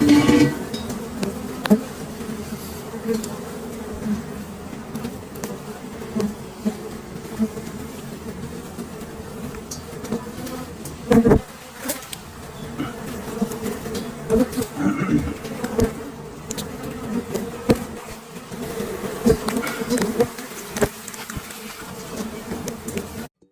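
Swarm of honeybees buzzing steadily around their hive, with scattered sharp knocks, the loudest a little past halfway. The sound cuts off suddenly just before the end.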